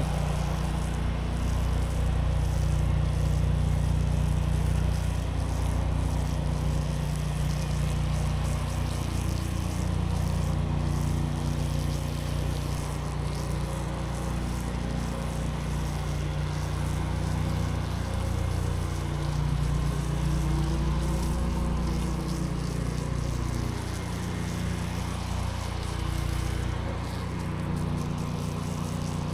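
Pressure washer's petrol engine running steadily, with the hiss of water spraying over concrete; the engine's pitch sags and recovers briefly about two-thirds of the way through.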